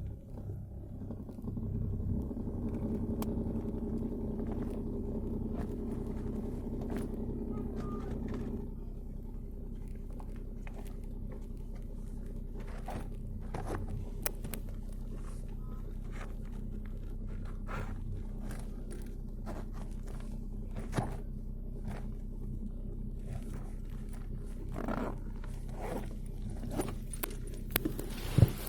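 Car engine running steadily, louder for the first several seconds, then settling into a quieter even hum, with scattered clicks and knocks on top, the sharpest near the end.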